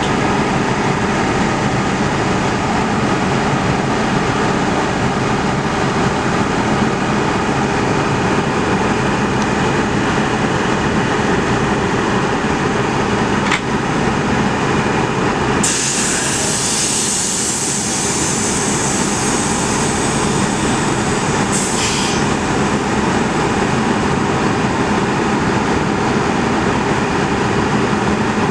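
A German train running steadily, with a constant low hum of several steady tones under the running noise. A single click comes about halfway through, followed by a loud high hiss that lasts several seconds and fades, with one more brief hiss shortly after.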